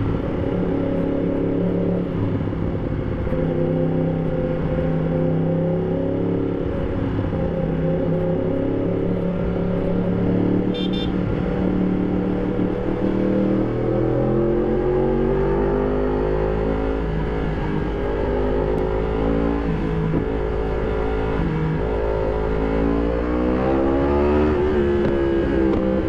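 2020 Yamaha MT-10 SP's 998 cc crossplane inline-four running through an Akrapovic exhaust under riding, its note stepping up and down with throttle and gear changes. In the second half it climbs in a long rising pull.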